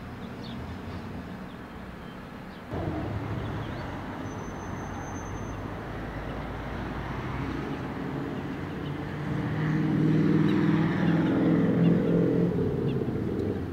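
Motor vehicle noise: a steady background rumble that steps up abruptly about three seconds in, then an engine hum that grows louder from about nine seconds in and is loudest near the end.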